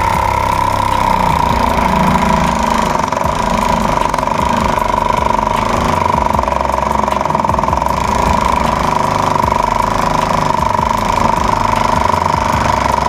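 Homemade scroll saw driven by a 775 DC motor running and cutting through thick MDF board: a steady whine with the rapid chatter of the reciprocating blade. The builder finds the motor low on RPM and torque.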